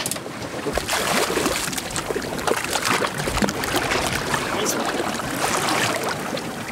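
A hooked chinook salmon thrashing at the surface beside a boat's hull, a run of irregular splashes over the wash of choppy sea.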